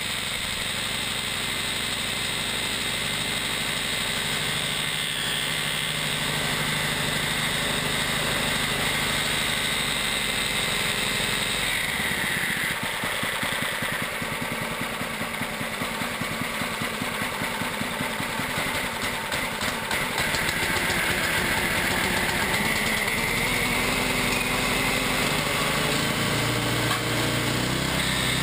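Single-cylinder GX200-clone four-stroke engine running on the bench while it belt-drives a 3D-printed Roots supercharger on its first run up to speed. The engine note settles lower and softer about twelve seconds in, then picks up louder at about twenty seconds.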